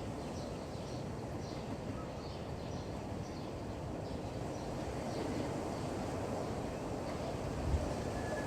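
Steady wind rumble with faint, scattered bird chirps; a brief low bump near the end.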